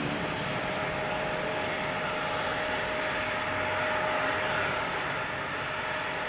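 Jet airliner engines running: a steady noise with a steady whine on top.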